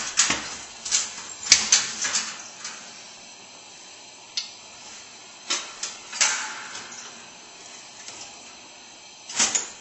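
Sheet-metal parts of a kerosene heater knocking and scraping as they are handled and fitted back into place, in scattered clanks with a few louder ones.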